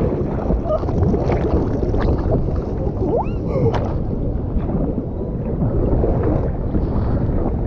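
Water sloshing and splashing around an action camera held at the surface by a swimmer, a dense churning wash of water noise. A short rising chirp cuts in about three seconds in.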